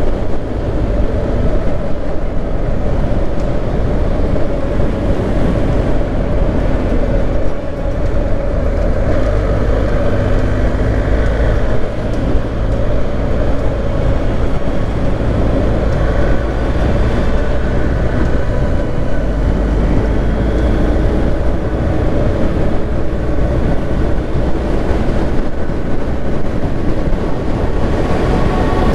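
BMW GS Adventure motorcycle running at road speed, with heavy wind rush on the microphone; the level dips briefly about seven and a half seconds in.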